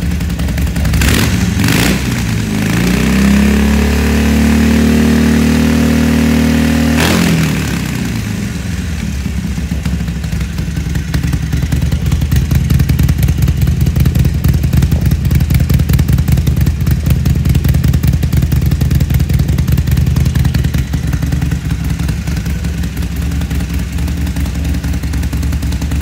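2019 Harley-Davidson Sportster 883's air-cooled V-twin, running through stock mufflers with their tips cut open. After two sharp blips about a second in, it is revved up and held for several seconds, then drops back about seven seconds in to a steady, pulsing idle.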